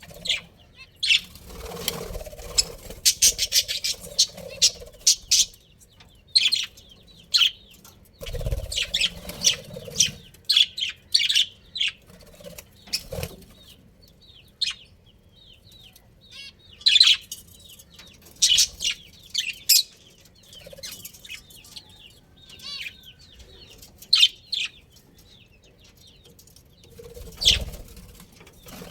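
Budgerigars chirping and warbling in quick, high, chattering calls that come in clusters, with occasional low flutters or thumps.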